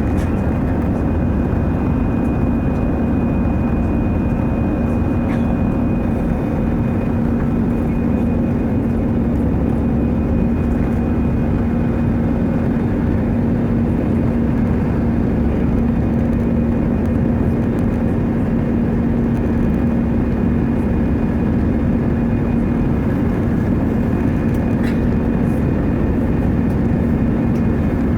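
Airbus A320's jet engines running at a steady thrust: an even, loud rush with a constant low hum and a faint high whine, neither rising nor falling.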